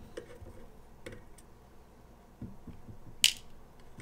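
Small clicks and knocks of a screwdriver and screws being handled on a wooden workbench, with one sharp, much louder click a little over three seconds in.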